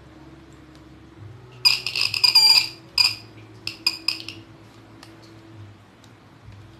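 A shrill electric buzzing tone sounds in short, irregular bursts, starting about a second and a half in and again around three and four seconds, each time the test light's probe makes contact in the motorcycle's live wiring harness with the ignition on.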